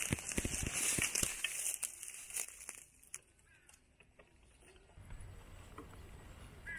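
Dry leaves and twigs crackling and snapping under the tyres of an HG P601 6x6 RC crawler truck, with several sharp twig snaps in the first second or so. The crackling dies away about three seconds in, leaving it much quieter.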